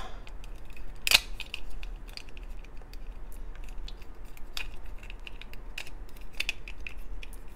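Plastic Happy Meal toy pieces clicking and scraping as a McNugget Buddy figure is pushed into its pumpkin costume, with a sharp click about a second in.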